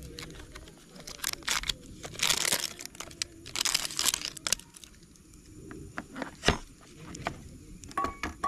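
Crinkling and tearing rustles in two longer spells a couple of seconds in, with scattered clicks and a sharp knock later on.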